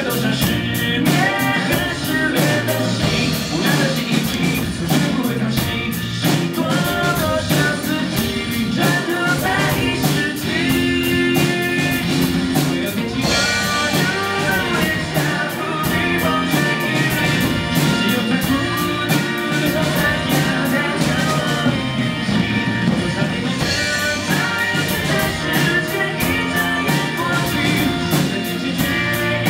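Rock song with sung vocals, electric guitar and a drum kit keeping a steady beat with fast, even cymbal strokes. The drum kit is played along to the song.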